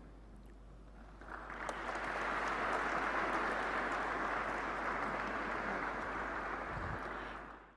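Audience applauding: light clapping at first that swells about a second and a half in into full, steady applause, then fades out near the end.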